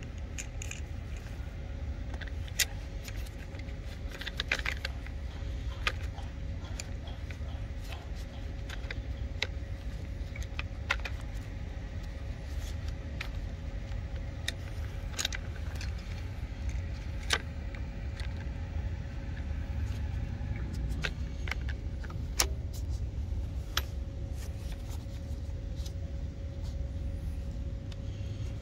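Scattered sharp plastic clicks and light rattles as the parts of a Ryobi REEL EASY+ string trimmer head with its orange bladed attachment are handled and fitted together, over a steady low rumble.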